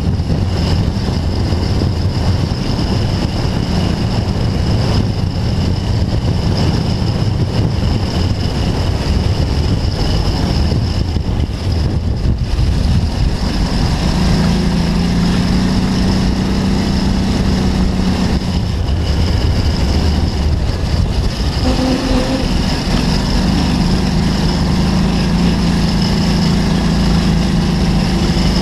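Off-road buggy engine running hard while the buggy is driven across rough field ground, with a constant low rumble. About halfway through, the engine settles into a steady, even drone.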